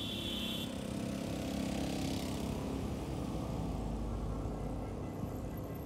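Street traffic: a motor vehicle's engine running past with a steady low rumble that swells about two seconds in. A high steady whine stops under a second in.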